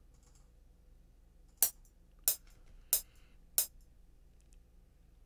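FL Studio's metronome counting in before recording: four sharp clicks, evenly spaced about two-thirds of a second apart, matching a 92 BPM tempo.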